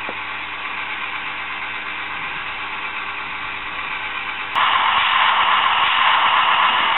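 Sound decoder of a Viessmann HO-scale track tamping machine model playing its diesel-engine running sound through the model's small speaker, mixed with the whir of the moving model. About four and a half seconds in it gets suddenly louder and hissier and stays so.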